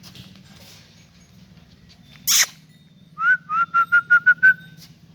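A short sharp noisy call, then a quick run of about eight whistled notes, each sliding slightly upward in pitch.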